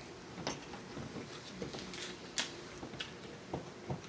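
Eating sounds: a fork clicking and scraping on a plate several times, the sharpest click about two and a half seconds in, with chewing in between.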